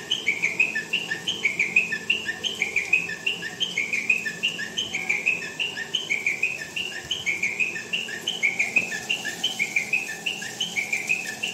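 Small birds chirping in a quick, steady, repeating series of short high chirps.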